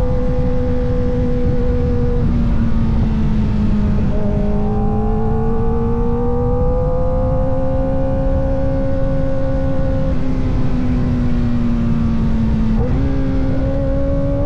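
Kawasaki Ninja ZX-4RR's 399 cc inline-four running at steady high revs under way. Its pitch drifts slowly up and down, with brief dips a few times and a step up in pitch near the end.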